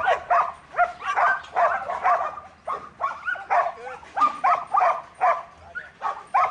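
Dog barking repeatedly and steadily, about three short barks a second.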